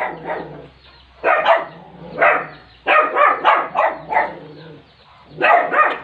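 Short, harsh animal calls in clusters: a pair, then one, then a quick run of four or five, then another pair near the end, over a faint low hum.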